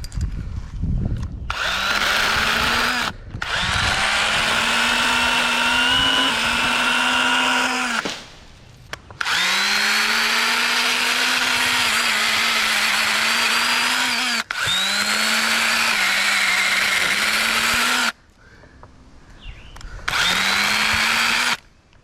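Echo battery-electric pruning saw running in five bursts of one to five seconds, its motor whine gliding up in pitch as it spins up at the start of each burst.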